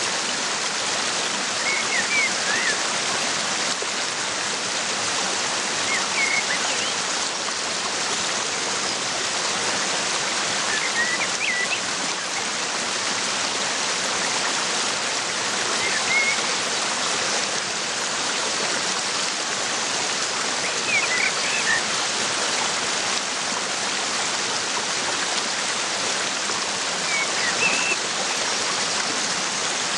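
Waterfall, a steady rushing of falling water, with a small bird giving short, high chirps about every four to five seconds.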